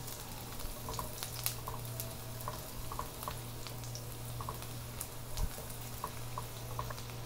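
Garlic frying in oil in a frying pan: a steady sizzle with scattered small pops and crackles, over a steady low hum. A single short low knock about five seconds in.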